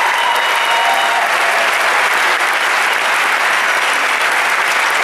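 Large audience applauding, a dense steady clapping that holds at one level.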